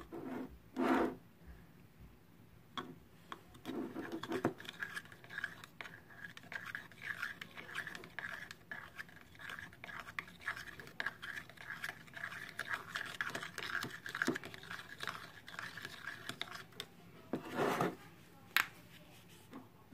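Soap and salt being stirred together in a container for slime: a utensil scrapes and clicks steadily for about thirteen seconds, with a few louder scrapes at the start and near the end.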